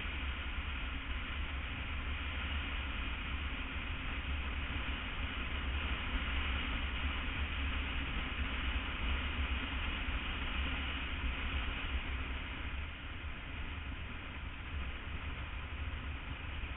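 BMW F800 ST parallel-twin motorcycle cruising at highway speed: a steady rush of wind and road noise with a deep rumble underneath, easing slightly a little past two-thirds of the way through.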